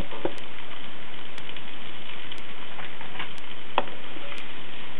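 Sliced onions sizzling steadily as they fry in melted butter in a wok, with a few sharp clicks of a wooden spoon against the pan as they are stirred.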